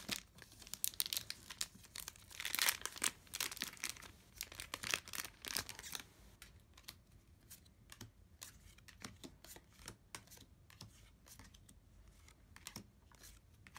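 Foil trading-card booster packs being crinkled and torn open, a dense crackle for the first six seconds that then thins to quieter, scattered clicks and rustles.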